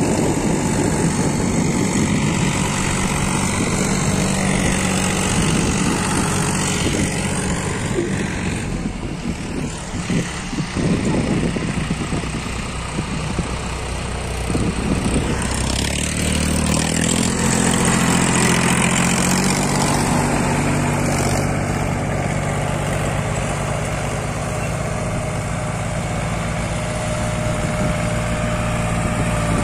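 Diesel tractor engines running steadily under load while pulling cultivators through dry soil. About halfway through, a closer engine takes over, with a clearer, steady hum.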